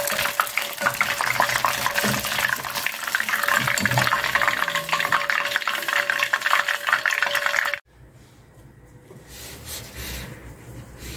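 Hot deep-frying oil sizzling and crackling with many fine pops after battered oysters. It cuts off suddenly about eight seconds in, leaving a faint low hum.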